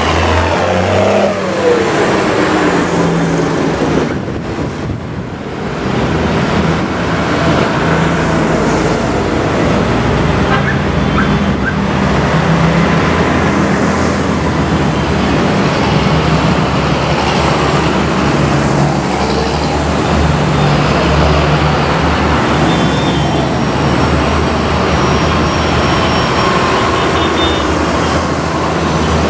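A procession of large farm tractors, John Deeres among them, driving past one after another, their diesel engines running loud and steady. About a second in, one passes close by and its pitch falls away.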